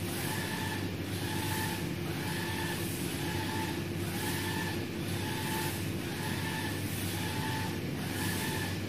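UV flatbed printer's printhead carriage shuttling back and forth along its gantry, with a short motor whine about once a second on each pass, over the machine's steady hum.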